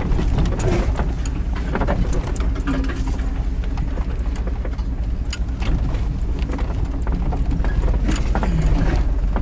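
Off-road vehicle driving slowly over a bumpy dirt track, heard from inside the cab: a steady low engine and road rumble with frequent rattles and knocks as it jolts over the rough ground.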